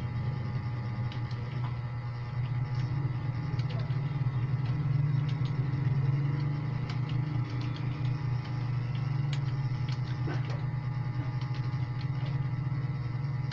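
Scattered, irregular computer keyboard key clicks over a steady low hum, with faint steady high-pitched whines in the background.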